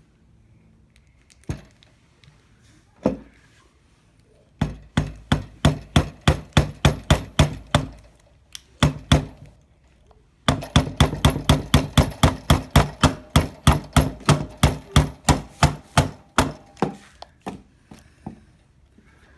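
Hammer tapping a roll pin into a Bostitch roofing nailer's trigger assembly: quick, even strikes about three a second, a short run and then, after a pause, a longer one, with a few single taps before and after.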